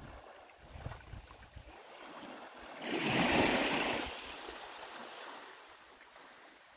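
Small waves washing onto a sand-and-pebble beach. One wave surges in about three seconds in and slowly drains away.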